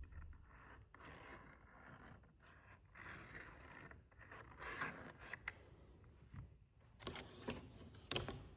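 Faint handling noises: objects being scraped and shuffled, with a few sharp clicks near the end.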